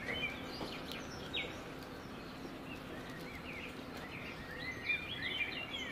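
Small birds chirping now and then, in short quick chirps that come more often near the end, over a steady faint outdoor background hiss.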